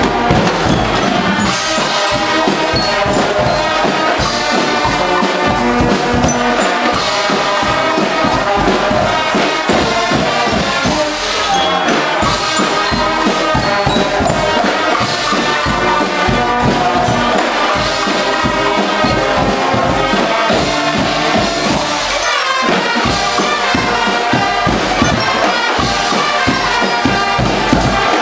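Guggenmusik brass band playing live and loud: trumpets, trombones and sousaphones play together over percussion keeping a steady beat.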